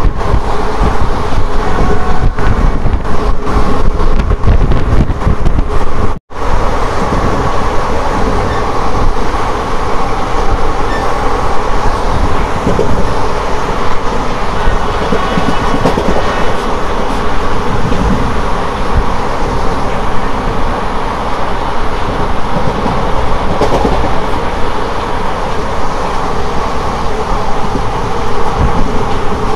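A moving passenger train running along the track, heard from a coach window as a loud, steady rumble and rattle of the wheels on the rails. The sound cuts out for a moment about six seconds in.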